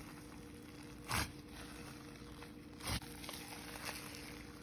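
Two short sharp sounds from slime being handled, about a second in and again near the three-second mark, over a faint steady hum.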